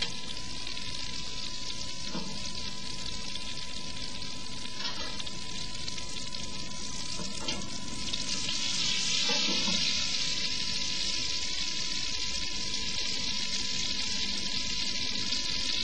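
Beef steak sizzling steadily as its second side sears in butter with crushed garlic and a bay leaf in a clay frying pan, getting a little louder about nine seconds in.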